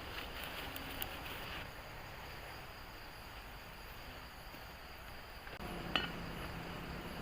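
Light clinks of camp cooking pots and utensils, with a sharp click about six seconds in, over a steady background hiss; a low hum comes in shortly before the click.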